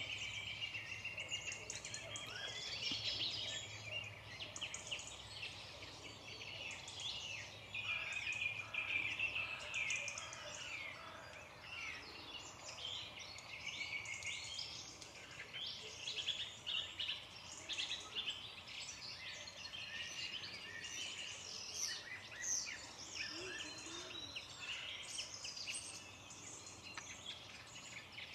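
Several songbirds singing and calling together in woodland, a dense, continuous mix of overlapping high chirps and quick phrases.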